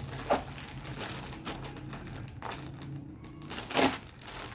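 Clear plastic garment bag crinkling and rustling as hands slide a folded lawn cloth suit out of it, with a louder crackle just after the start and another near the end.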